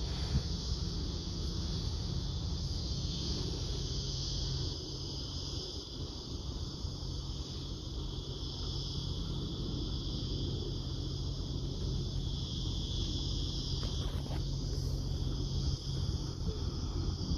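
Distant jet airliner's low rumble as it climbs away, under a steady high-pitched insect chorus.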